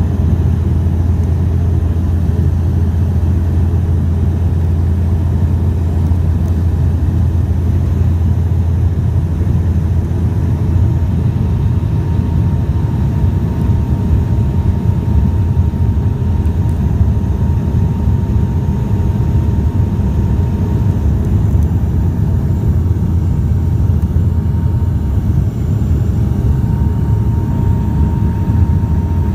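Bombardier Dash 8 turboprop's engines and propellers droning steadily, a deep hum with a faint higher steady tone coming in about ten seconds in.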